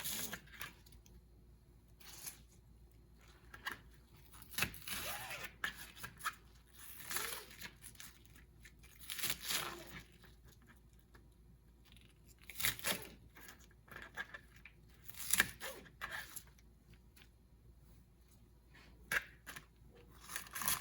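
Knife cutting bok choy into bite-sized pieces on a cutting board: irregular cuts and knocks in spurts, some lasting about a second, with short pauses between.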